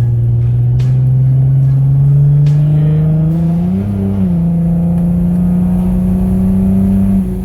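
Dodge Journey's 3.6-litre V6 pulling hard under heavy throttle, its engine note climbing steadily with a brief jump in pitch about four seconds in, then falling away near the end as the throttle eases off.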